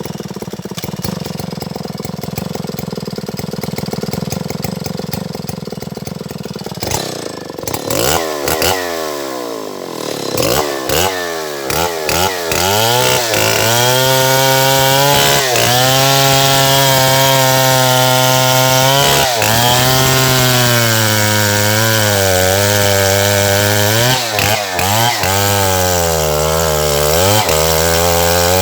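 Stihl MS070 two-stroke chainsaw running at a low steady idle, then revved up about seven seconds in and held at high revs while cutting wood, its pitch dipping briefly several times as the chain takes load in the cut.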